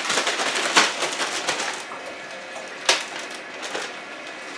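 Plastic zip-top bag holding flour and a piece of squirrel meat being shaken to coat the meat: a fast, crinkling plastic rustle for about two seconds, then softer handling with one sharp click about three seconds in.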